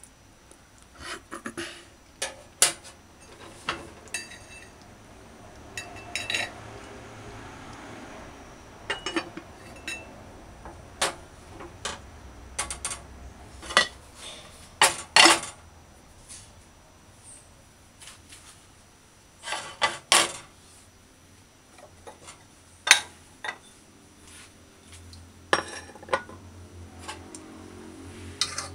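Cookware clatter: a slotted spoon stirring and knocking in an aluminium pot of thick curry, then the aluminium lid set on the pot, heard as a string of separate clinks and knocks.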